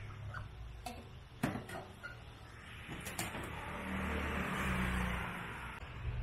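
A few knocks and clatters of containers, then liquid pouring into a container for about three seconds, swelling and then stopping near the end.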